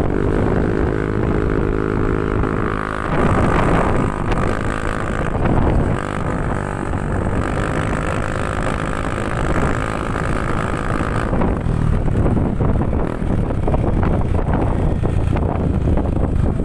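Yamaha NMAX 155 scooter's single-cylinder engine running loud through an aftermarket JVT V3 exhaust pipe, with wind noise on the microphone. The engine holds a steady note, shifts pitch about three seconds in, and holds a higher note until it changes again about eleven seconds in.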